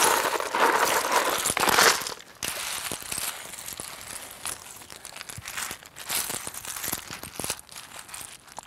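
Slate chips poured from a bucket onto soil: a loud clattering rush for about two seconds. Then lighter clinks and scrapes as the slate pieces are spread around the plant by hand.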